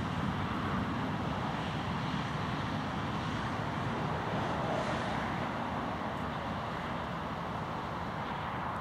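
Boeing 737-400's CFM56-3 jet engines running as the airliner rolls out along a wet runway after landing: a steady, distant jet noise with a faint high whine, easing off slightly.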